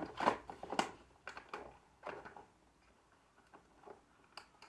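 A few sharp plastic clicks and knocks from the vacuum cleaner's cord-rewind reel as it is pushed and pried apart, mostly in the first two seconds, with only faint ticks after that.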